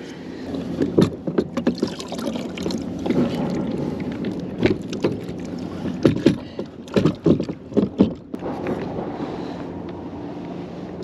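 Irregular knocks and clunks of a Reel Yaks two-piece fishing kayak's pedal fin drive being pulled from its hull well and seated again the other way round, its pedals having driven the boat backwards.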